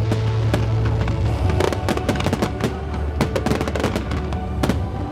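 Fireworks bursting and crackling in rapid, irregular succession, over music with sustained tones.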